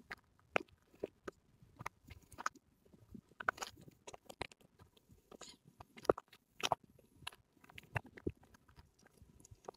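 Faint crunching footsteps on a loose gravel and rock trail, an uneven step or two a second.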